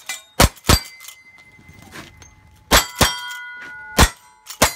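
Lever-action rifle fired in quick succession, six shots in all, mostly in pairs about a third of a second apart. Each shot is followed by the ring of a steel target being hit.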